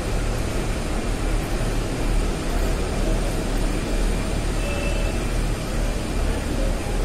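Steady airport terminal ambience: a constant low rumble under an even hiss, with no distinct events standing out.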